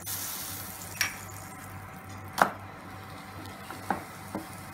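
A wooden spatula knocking against a non-stick kadai, four sharp knocks with the loudest about halfway through, as a flipped paratha is laid back down in the pan. Melted butter sizzles faintly in the pan at first, then fades.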